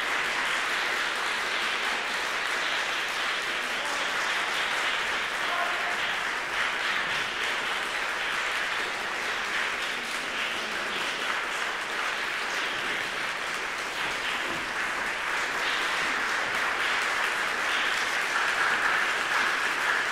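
Audience applauding steadily in a concert hall, a dense even clapping that swells a little near the end.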